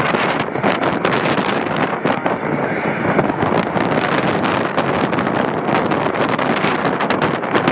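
Steady, loud roar of a CF-18 Hornet's twin jet engines, mixed with wind buffeting and crackling on the phone's microphone.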